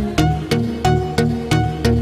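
Electronic background music with a steady beat of about three hits a second, over a bass line and synth melody notes.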